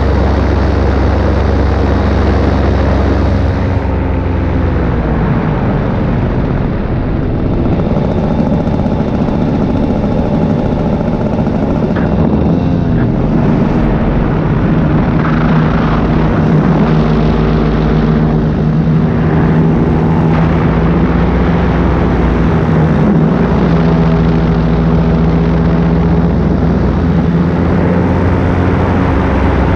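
Paramotor engine and propeller running in flight. The engine note drops a few seconds in and shifts several more times as the throttle is worked.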